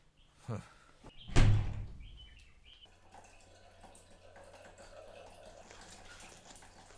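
A single heavy thump about a second and a half in, dying away over about a second. After it come a few faint chirps and a low steady hum.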